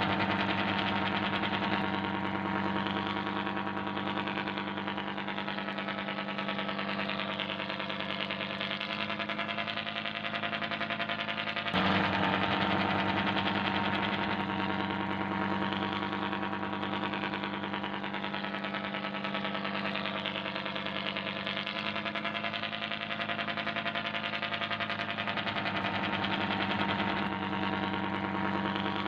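Simulated ship diesel engine sound: a steady, low engine drone with a strong hum. It steps up abruptly in loudness about twelve seconds in.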